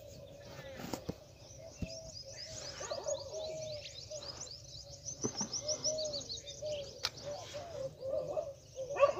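Birds chirping and twittering in quick high runs, busiest through the middle, with lower calls repeating underneath. A short, sharper sound comes near the end.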